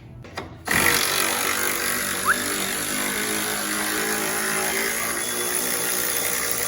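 Impact wrench starting under a second in and running steadily, spinning bolts off on the strut.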